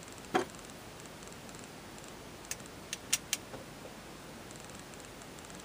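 Small, sharp plastic clicks and taps from a blush compact and makeup brush being handled: one click just after the start, then a quick run of four lighter taps about two and a half seconds in.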